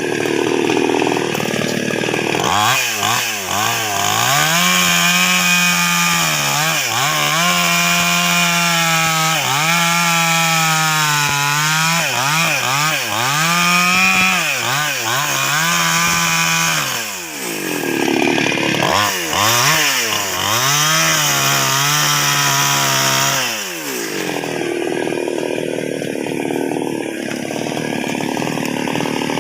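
Two-stroke chainsaw cutting through a large sengon trunk. The engine pitch repeatedly sags under load in the cut and picks back up, with a brief change in sound at about 17 seconds and again near 24 seconds, when the engine runs at a higher, even pitch.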